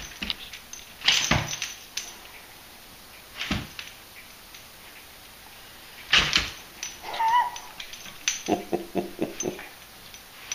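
A dog and a cat at a wire pet gate: sharp knocks and rattles, with a jingle like collar tags. About seven seconds in there is one short, high animal call, then a quick string of short, low animal sounds.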